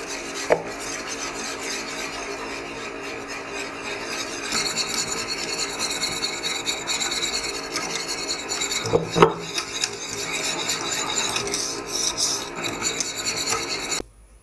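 Wire whisk beating béchamel in a stainless steel saucepan: a steady, rapid scraping and swishing as milk is whisked into the roux to smooth out the lumps. It becomes busier about four seconds in, with two sharp knocks, one just after the start and one about nine seconds in, and stops abruptly near the end.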